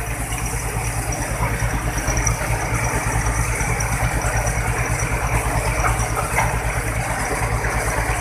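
A tow truck's large diesel engine idling steadily, with an even low rumble.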